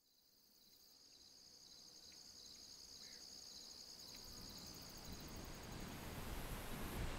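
Insect chorus, a high steady trilling, fading in from silence. A broad rushing noise swells under it through the second half.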